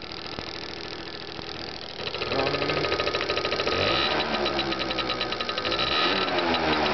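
Scooter engine running with a TV flyback transformer standing in for its ignition coil. It runs steadily at first, then from about two seconds in it gets louder, with the pitch rising and falling as it is revved, over a fast, even ticking.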